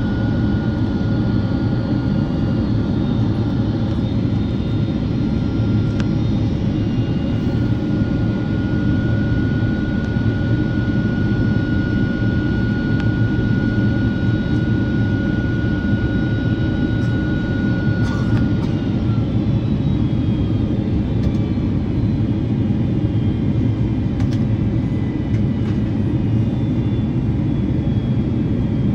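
Inside the cabin of a Boeing 767-400: steady jet-engine and airflow rumble, with faint engine whines that slowly shift in pitch.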